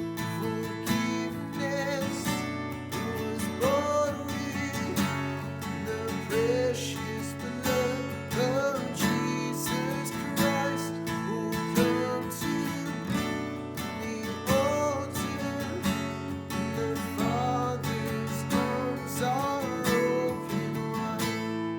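Worship music on strummed acoustic guitar, a steady chordal accompaniment with a melody line gliding above it.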